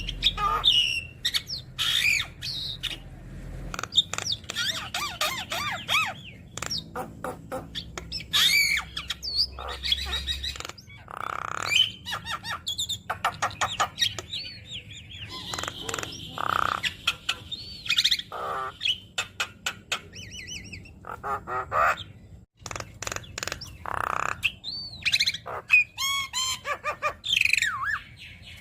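Javan myna (jalak kebo) singing a long, varied stream of harsh squawks, rapid clicking chatter and rising and falling whistled phrases, many of them copied from other birds. The song breaks off for a moment about three-quarters of the way through, then goes on.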